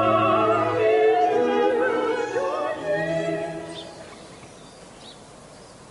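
Operatic music with a singing voice on wavering, held notes, fading out about two-thirds of the way through and leaving only a faint background hiss.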